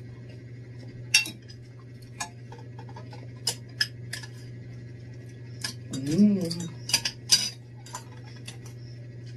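Spoons and forks clinking and scraping against ceramic plates while eating: a scatter of short, sharp clinks over a steady low hum.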